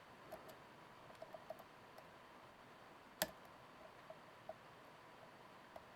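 Faint small metallic clicks of a lock pick working the pins of a Kwikset SmartKey lock, with one sharper click about three seconds in.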